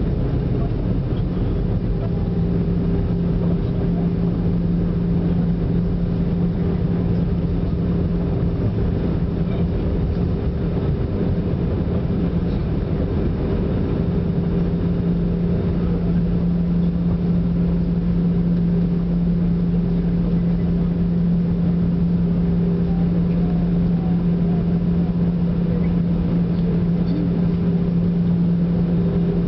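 Cabin noise of an Airbus A320-family airliner rolling on the ground after landing: a steady drone from the jet engines and airflow, with a steady low hum running through it.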